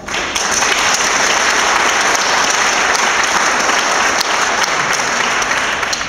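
Audience applauding: a steady round of clapping.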